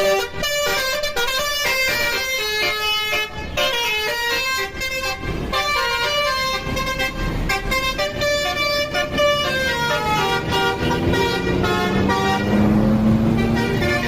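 A bus's multi-tone telolet horn plays a quick stepping melody of bright horn tones for about ten seconds. Near the end the horn gives way to a growing engine rumble with one low note that climbs slowly.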